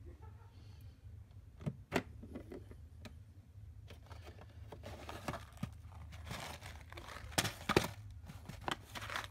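Scattered plastic clicks and knocks as an electric dustpan's lid is opened and its paper dust bag is handled and taken out, with some soft paper rustling.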